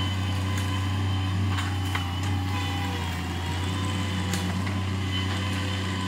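Bobcat MT100 mini track loader running steadily as it carries a load of brush, a constant low engine drone with a thin higher whine over it. A few sharp clicks come through.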